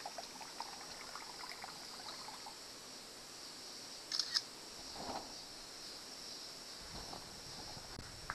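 Smartphone camera shutter sound, a quick double click about four seconds in, over a faint steady high hiss.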